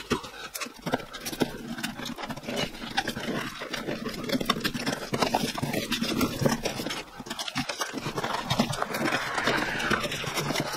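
Cardboard packaging being opened by hand: box flaps pulled apart and folded back, with continuous rustling, scraping and many small knocks and clicks.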